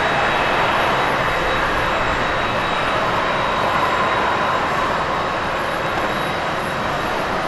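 Airbus A330-900 climbing out after takeoff, its Rolls-Royce Trent 7000 turbofans running at climb thrust with a steady jet roar that eases slightly as the aircraft draws away.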